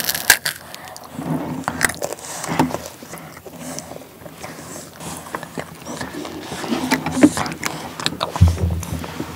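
Bites and crunchy chewing of bark chocolate topped with crisp dried fruit, heard close up as irregular snaps and crackles, with a dull thump near the end.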